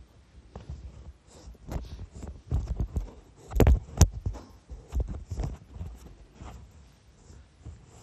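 Irregular soft knocks and rustles, with two sharper knocks about three and a half and four seconds in.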